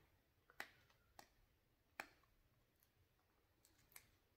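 Near silence with a few faint, short plastic clicks, three in the first two seconds and one more near the end, as the cap of a small cream bottle is worked open.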